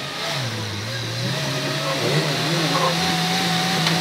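Suzuki Jimny's engine straining under load as it climbs a steep dirt slope. Its pitch rises about a second in, then holds high and steady, with the sound growing louder.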